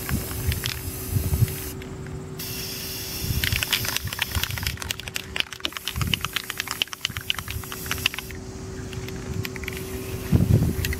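Aerosol spray paint cans hissing in spurts as paint is sprayed onto water, with brief breaks about two seconds in and again near the end, and a rapid crackly sputter in the middle stretch.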